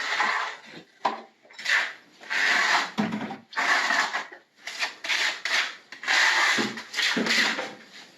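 Repeated rough scraping strokes over a hard surface, about ten in all, some short and some drawn out to a second, each stopping and starting again.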